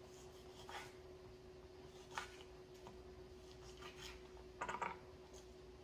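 Knife cutting a lime into wedges on a cutting board: a few soft, separate cuts and taps, then a quick run of them near the end. A faint steady hum lies underneath.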